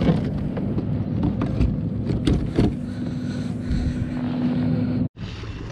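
Knocks, clicks and rattles of a fish and gear being handled aboard a fishing kayak. A steady low hum joins about halfway through, and the sound cuts off abruptly near the end.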